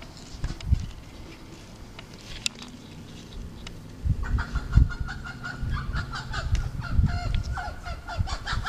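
Chickens calling, starting about halfway through in a quick run of repeated calls, over low thumps and rumble.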